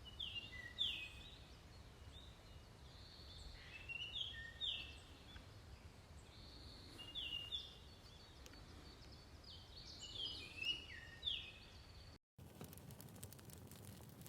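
Several small birds chirping and calling outdoors, in short falling notes, over a low steady rumble of outdoor ambience. About twelve seconds in the sound cuts and a dense fine crackling follows.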